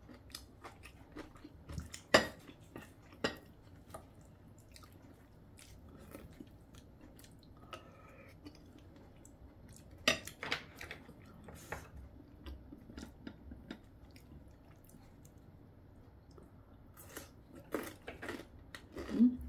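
Eating sounds: a spoon clinking and scraping on a ceramic plate, with chewing in between. Scattered sharp clicks, the loudest about two seconds in and again about ten seconds in.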